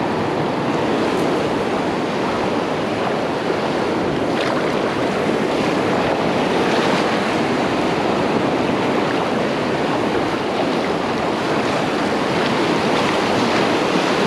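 Shallow ocean surf washing in and breaking, a steady rushing noise.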